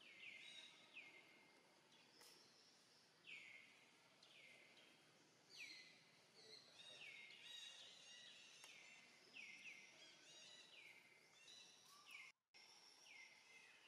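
Faint bird calls, each a quick falling whistle, repeated about once a second, with several overlapping in the middle, over a quiet outdoor hiss. The sound cuts out for a moment near the end.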